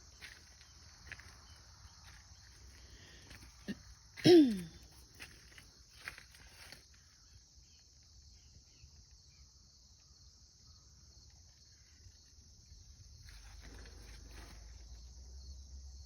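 Steady high-pitched chirring of crickets in an outdoor insect chorus, with light footsteps and rustling. About four seconds in, one brief, loud, falling-pitched call or cry cuts across it.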